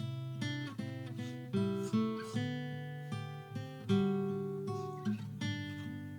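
Background music: acoustic guitar played with plucked and strummed notes that ring out and fade.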